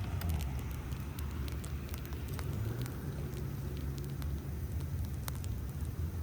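Bonfire crackling, with many small sharp pops scattered irregularly through it, over a steady low rumble.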